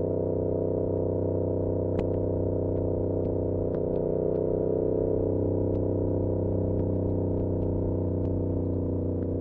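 2022 Yamaha R7's 689 cc parallel-twin engine running through an SC-Project CR-T exhaust at a steady throttle, its pitch holding level. It is picked up by a recorder inside a backpack, with scattered light ticks from the bag's straps slapping against the bag, the sharpest about two seconds in.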